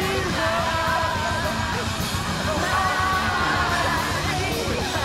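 Loud music with singing and a driving beat, with people yelling over it.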